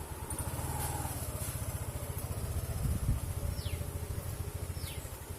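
Motorcycle engine running with a fast low pulse, louder about three seconds in and then fading.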